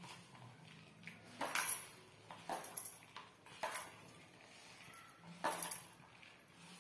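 A hand squeezing and tossing crumbly gulab jamun dough in a plastic bowl, with bangles on the wrist clinking. Short rustles and clinks come in small clusters.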